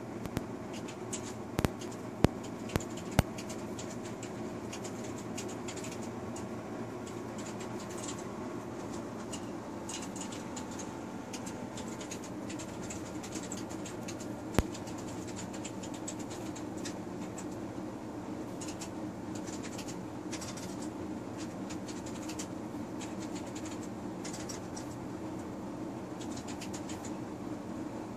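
A cat pawing at ice cubes in a stainless steel water bowl: a few sharp clinks within the first few seconds and one more about halfway, with light scratchy pawing sounds in between.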